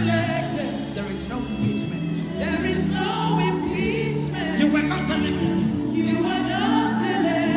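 Live gospel worship music: voices singing wavering lines over sustained chords, with a drum kit played along and cymbals struck.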